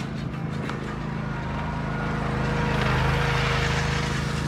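A motor running steadily with a low hum, and a rushing noise that swells to its loudest about three seconds in and then fades.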